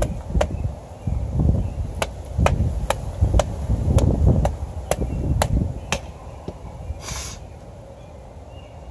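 A bush knife with an A2 tool-steel blade chopping into wood in quick, sharp strikes about twice a second for roughly six seconds, with wind rumbling on the microphone.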